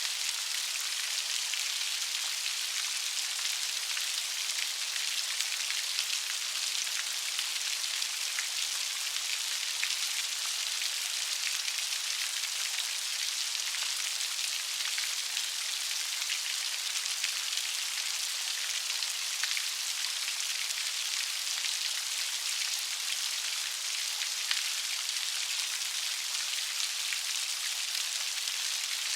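Light rain falling steadily, a continuous high hiss of many small drops pattering on a surface.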